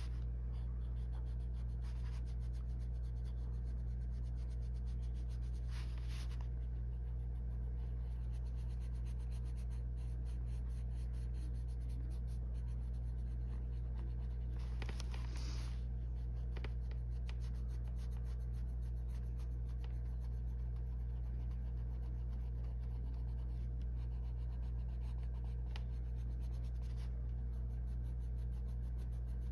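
Colored pencil scratching across coloring-book paper in many quick, short shading strokes, over a steady low hum.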